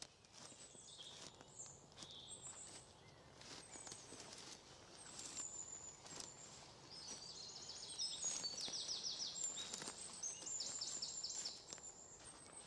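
Small birds chirping and singing in woodland, with quick trills of rapidly repeated notes through the second half. Scattered footsteps on the dry, leaf-strewn forest floor.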